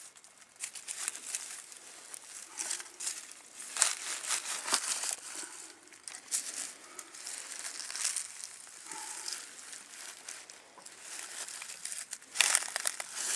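Digging in soil to recover a metal-detector target: irregular scraping and crunching, with louder strokes about four seconds in and near the end.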